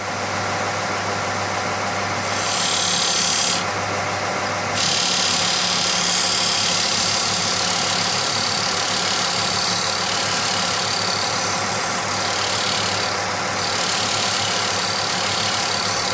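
Charnwood BD610 belt and disc sander, with its 750-watt induction motor, switched on just as it begins and then running steadily with a low hum. A wooden block is being sanded against its 10-inch disc, with small changes in the hiss a few times.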